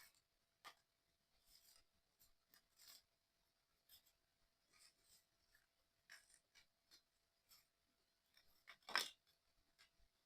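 Faint, scattered small clicks and rustles of puzzle-kit parts being handled and fitted together, with one louder sharp click about nine seconds in.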